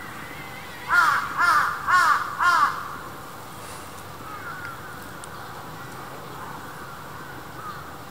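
A crow cawing four times in quick succession about a second in, with a few fainter calls later.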